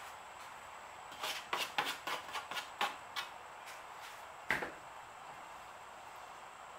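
Painting supplies handled on a table: a quick run of about ten small clicks and taps over two seconds, then one louder knock about four and a half seconds in.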